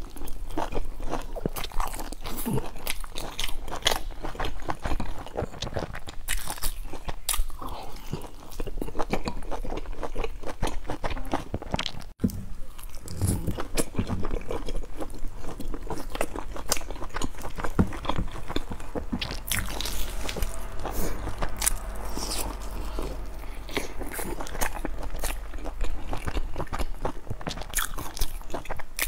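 Close-miked biting and chewing of large baked stuffed buns with a golden crust: a dense run of short sharp clicks and crunches from the crust and filling, with wet mouth sounds. The sound cuts out for an instant about twelve seconds in.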